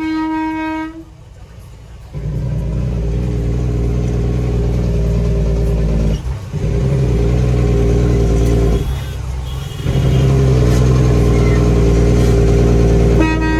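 A heavy truck's air horn blows one steady note at the start and again near the end. In between, the truck's diesel engine runs steadily and eases off briefly twice.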